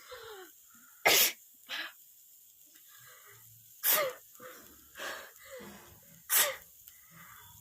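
A woman sneezing over and over that she cannot stop, set off by pungent fumes from spicy cooking: three loud sneezes about two and a half seconds apart, with smaller sneezes or sniffs in between.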